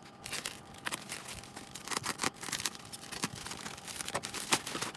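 Box cutter slitting the packing tape and plastic wrapping of a parcel, and the wrapping crinkling and tearing as it is pulled open, in an irregular run of crackles and rustles.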